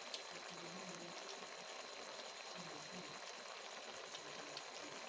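Curry simmering in a steel wok over a gas burner: a faint, steady bubbling hiss.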